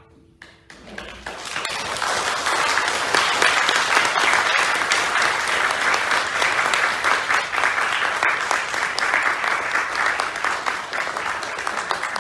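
Audience applauding at the end of a performance: the clapping starts about a second in, swells within a second or two and then holds steady.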